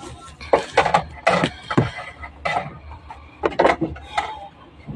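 Dishes and utensils being handled on a table: an irregular string of short knocks and clinks, about eight in a few seconds.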